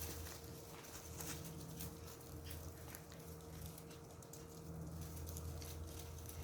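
Faint pattering and rustling of Pomeranian puppies' paws as they run about, scattered light clicks over a steady low hum.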